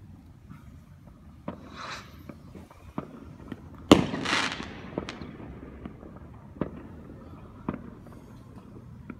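Fireworks going off: about eight sharp bangs at uneven intervals, the loudest about four seconds in. A burst of hiss, like a rocket's trail or crackling stars, comes near two seconds and again right after the loudest bang.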